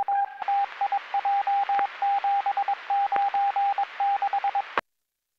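Police radio channel sending an automatic Morse code identification: a single mid-pitched tone keyed in dots and dashes over radio hiss for nearly five seconds, then cutting off abruptly.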